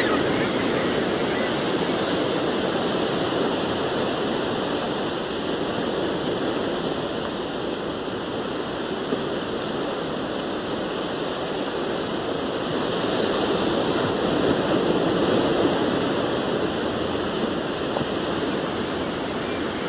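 Ocean surf washing onto a beach: a steady rush of breaking waves that swells louder about two-thirds of the way through.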